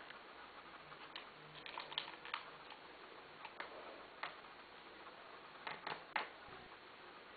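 Guinea pig rummaging through dry hay in a plastic dustpan: faint, irregular clicks and rustles, coming in small clusters.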